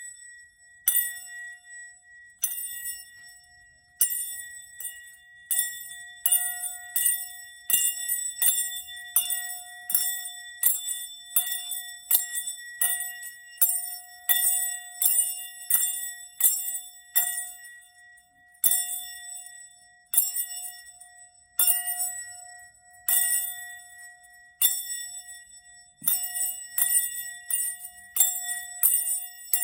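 Small bells rung again and again, a bright jingling strike about once a second and sometimes faster, each strike ringing on with a steady high tone.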